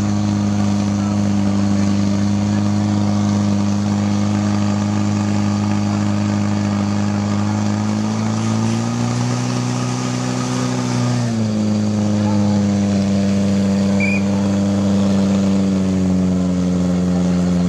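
Portable fire pump's engine running flat out, driving water through the attack hoses to the jets. Its pitch rises briefly about nine seconds in, then falls about eleven seconds in and keeps sinking slowly.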